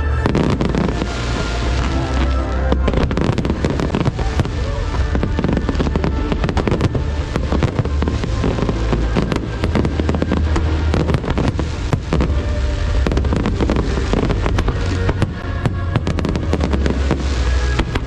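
Aerial fireworks going off in a rapid, dense barrage of cracks and bangs, over music with a heavy bass playing through loudspeakers.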